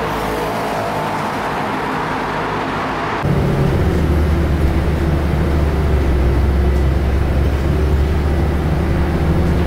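Steady vehicle and road noise. About three seconds in it cuts to a louder, deeper rumble.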